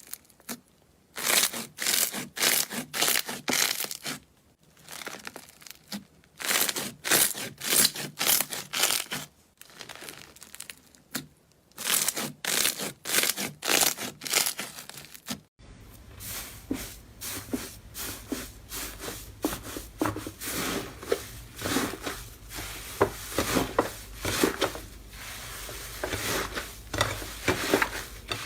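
Slime being squeezed, stretched and pressed by hand, making rapid sticky clicks and pops in bursts a few seconds long. About halfway through, a new clip brings steadier, continuous clicking over a low hum.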